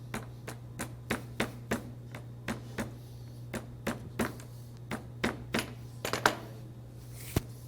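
Irregular light tapping, about two or three sharp taps a second, as the strands of a braided rawhide button are flattened down. A steady low hum runs underneath.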